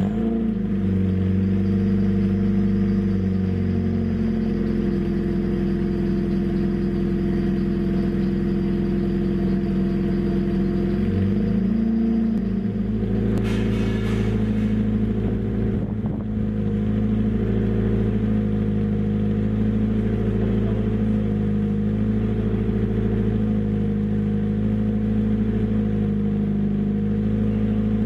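Mitsubishi Mirage's 4G92 MIVEC 1.6-litre inline-four idling steadily through a custom RPW 4-1 race header and exhaust, freshly started on the new header and, by the owner's account, free of exhaust leaks. The idle note shifts slightly a little before halfway.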